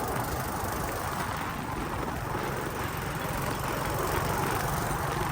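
Motorcycle running steadily while being ridden, its engine hum mixed with wind and road noise on the microphone.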